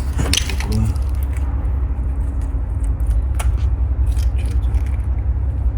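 A few light clicks and scrapes of small parts being handled, over a steady low rumble.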